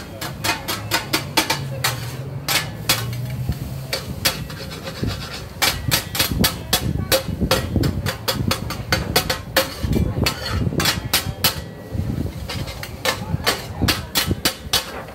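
Two metal spatulas clanking and scraping rapidly and irregularly against a large, flat steel pan as noodles are stir-fried.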